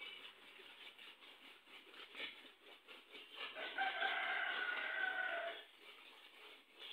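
A rooster crowing once, a single long call that starts about three and a half seconds in and lasts about two seconds.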